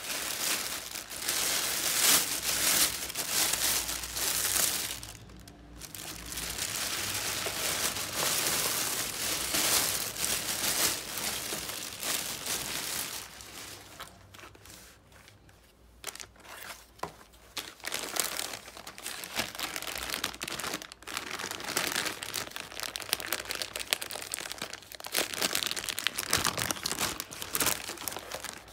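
A plastic carrier bag and a paper food bag crinkling and rustling as they are handled and opened, in irregular bursts with short pauses, loudest in the first half.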